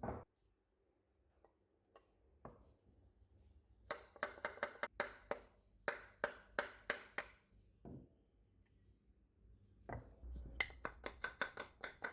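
Sharp knocks with a metallic ring: a woodturning tool being struck to drive its steel blade out of the wooden handle. The knocks come in quick runs of several strikes, with pauses between the runs.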